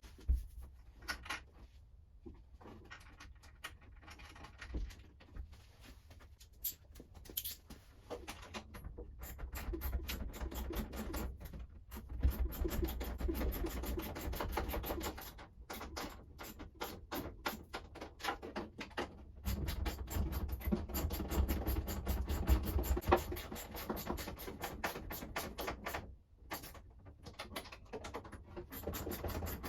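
Hand work on a car door hinge: irregular small metallic clicks, taps and scratching of parts and hand tools, with busier stretches of handling noise partway through and again after about twenty seconds.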